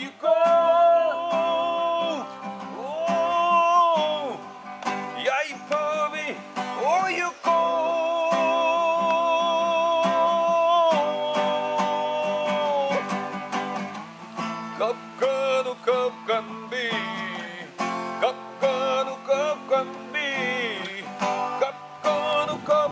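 Singing with long held, wavering notes, accompanied by an acoustic guitar played live.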